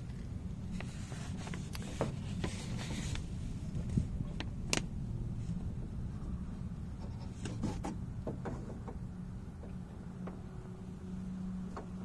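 Scattered light clicks and taps as a hand works the exposed door-handle mechanism and its coil spring, over a steady low rumble.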